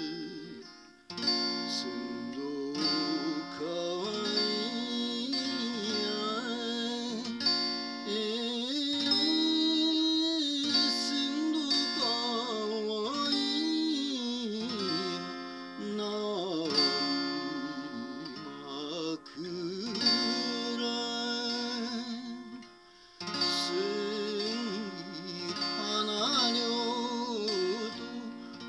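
A man singing a 1930s Japanese popular song, accompanying himself on a strummed and plucked acoustic guitar, with short breaks between vocal phrases.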